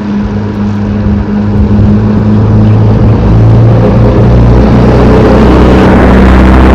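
A motor vehicle's engine running with a steady low drone, growing louder over the first three seconds and then holding level.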